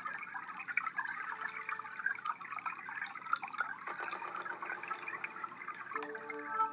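Aquarium water bubbling and trickling in a dense, busy patter. Steady ambient drone music tones come back in near the end.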